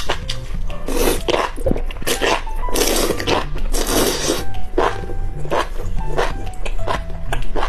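Slurping and chewing of enoki mushroom strands coated in chili-oil sauce, with a short slurp about a second in and a longer, louder one in the middle, over background music.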